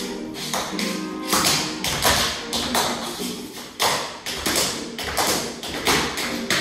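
Dance shoes tapping sharply on a wooden floor, two or three clicks a second, in time with music with sustained melodic tones.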